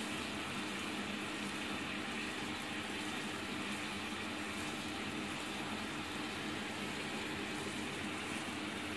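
Sugar syrup boiling in a pan with rasmalai chhena discs cooking in it: steady bubbling, over a steady low hum.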